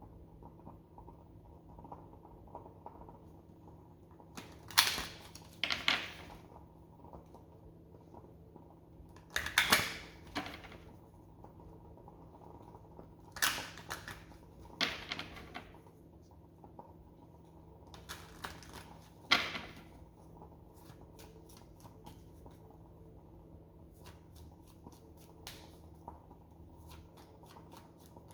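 A deck of reading cards being handled: several short swishes of cards being shuffled or slid, followed near the end by a run of quick, light clicks.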